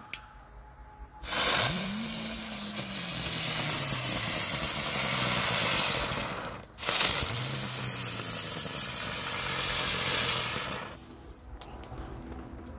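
Ground bloom flower firework spinning on pavement, hissing loudly with a whirring pitch that rises and then slowly sinks as the spin slows. It breaks off briefly partway through, hisses again with a second slowly falling whir, and dies away near the end.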